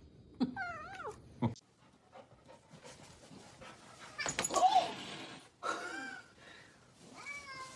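Pet animal calling: a short gliding whine, then after a break two louder calls that rise and fall, and a long, steady call beginning near the end.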